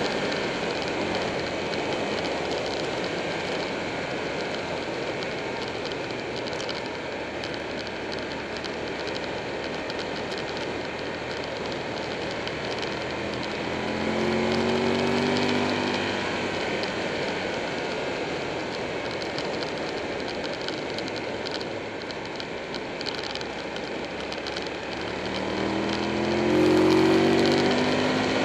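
Buell 1125R's V-twin engine running at road speed under a steady rush of wind on the microphone. About halfway through, and again near the end, the engine note grows louder and climbs as the bike accelerates.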